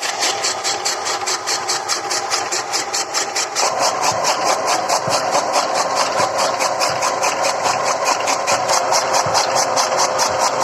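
Engine running steadily with a fast, even beat of about four to five pulses a second. It grows louder about three and a half seconds in.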